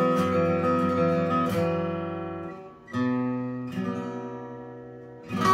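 Eastman PCH2-GACE cutaway acoustic guitar, with a spruce top and laminated rosewood back and sides, played unplugged: strummed chords left to ring and fade. New chords come in about three seconds in and again just after, then a sharp strum near the end.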